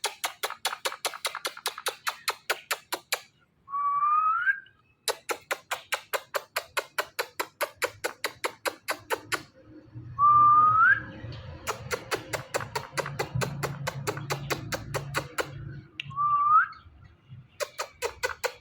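Ringneck parrot making long runs of rapid, even clicks, about six a second, broken three times by a short whistle that rises in pitch.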